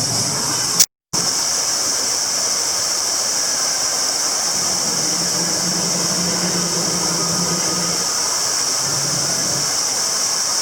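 Steady hissing noise, strongest in its high, thin part, broken by a sudden brief dropout about a second in. A faint low hum sits under it in the second half.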